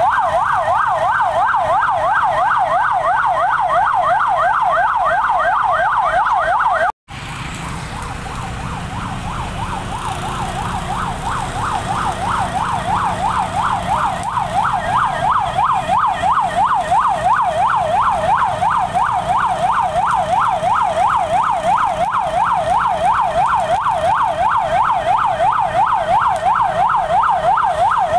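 Electronic emergency-vehicle siren sounding a fast yelp, its pitch sweeping up and down several times a second. It cuts out for a moment about seven seconds in, then comes back quieter and grows louder again.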